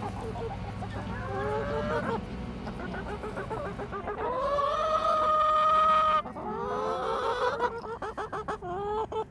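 Chickens calling: a few short rising calls, then one long drawn-out call lasting about two seconds, followed by a quick run of clucks.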